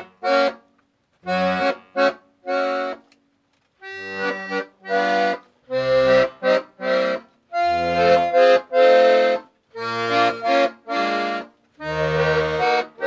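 Hohner Arietta accordion's bass side played as a series of short bass notes and chords with brief gaps between them. The freshly revalved, not-yet-tuned bass reeds sound a little out of tune in places.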